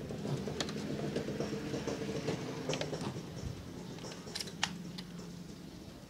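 Wash motor of a Polytron PWM-7056 twin-tub washing machine humming after being switched on, with a few light clicks; the hum slowly fades. The motor hums but lacks the strength to turn, which the technician puts down to a weak run capacitor or a weak motor.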